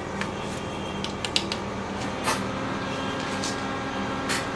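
Scattered light clicks and taps of handling at a repair bench over a steady low electrical hum. The most distinct click comes about halfway through.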